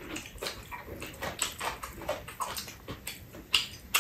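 Close-up mouth sounds of people eating: wet chewing, lip-smacking and slurping of juicy Shine Muscat grapes and kimbap, with a couple of sharper clicks near the end.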